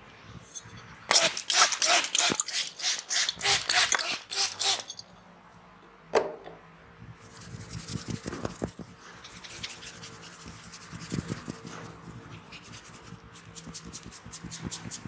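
Hand massage percussion: a run of quick slaps or taps on the body at about five a second, a single slap, then skin-on-skin rubbing, and a lighter, faster run of tapping near the end.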